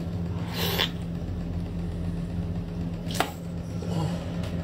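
Eating sounds from biting and sucking marinated octopus tentacles: a short wet slurp about half a second in and a sharp smack about three seconds in, over a steady low hum.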